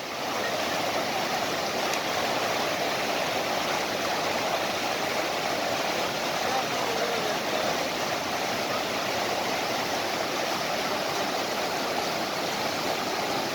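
Steady rush of flowing water, like a stream or small waterfall, with no change in level.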